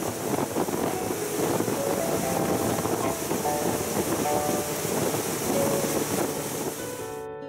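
Steady loud rush of wind, water and motor noise from a speedboat moving fast across open water, with faint background music under it. The boat noise cuts off abruptly near the end, leaving the music alone.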